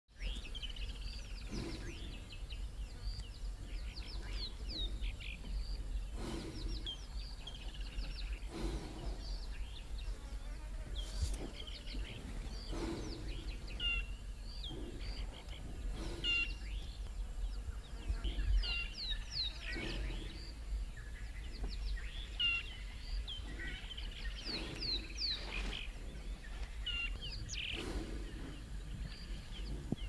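Small birds chirping and calling in quick short notes throughout, over a steady low background rumble, with a soft low whoosh every few seconds.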